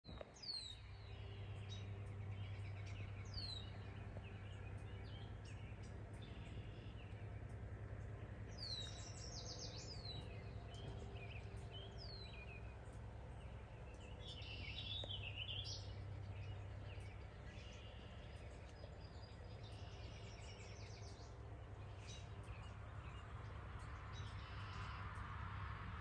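Small songbirds chirping in the trees: short high chirps that drop in pitch, a few seconds apart, with a busier run of twittering about halfway through.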